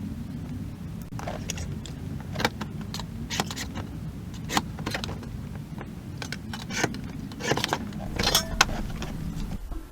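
Irregular sharp metal clinks and clatter, the sound of sheet metal and hand tools being handled, over a steady low hum.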